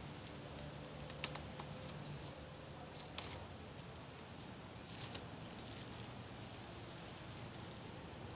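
Faint handling sounds of a small teleprompter part being turned over and unwrapped from white wrapping: light rustles and three short light clicks, over a steady faint hiss.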